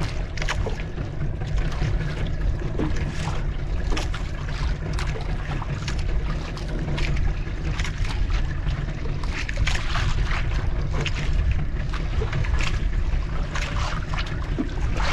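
Wind and water noise on a small boat at sea: a steady low rumble with irregular splashes and knocks.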